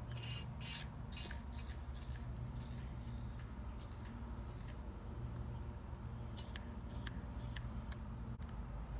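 Aerosol can sprayed in a series of short hissing bursts through an extension straw into a steel bicycle frame's bottom bracket shell, several quick squirts at the start and another run of them near the end.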